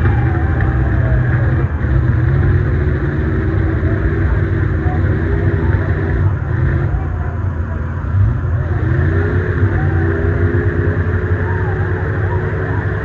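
Big mega-truck engines running loud, with a deep rumble and revving up and down.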